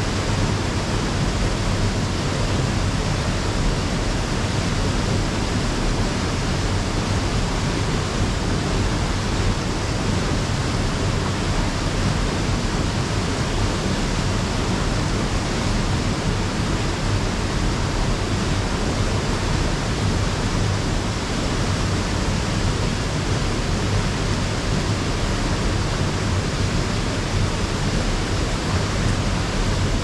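Steady rush of a small waterfall pouring into a creek pool.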